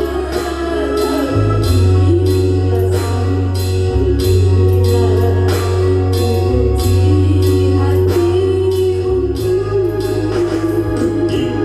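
Loud amplified music over a PA sound system: a song with singing, a steady drum beat and a heavy bass line that changes note every second or two.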